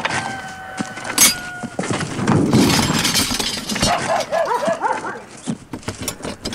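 A dog barking in a quick run of four or five short yelps about four seconds in, after a noisy rustling clatter as scrap metal is pushed aside.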